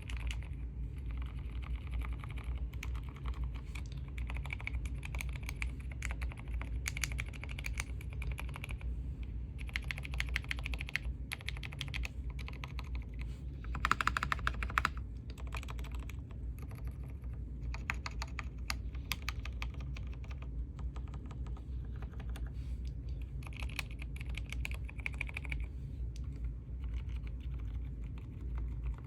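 Typing on a computer keyboard: rapid key clicks in runs with short pauses, with a louder flurry about halfway through, over a steady low hum.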